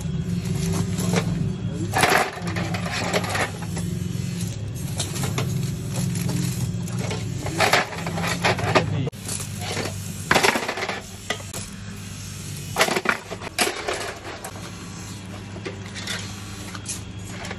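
Bunches of steel scissors clinking and clattering against one another and against a metal pan as they are handled, in irregular bursts, over a low steady hum that weakens about nine seconds in.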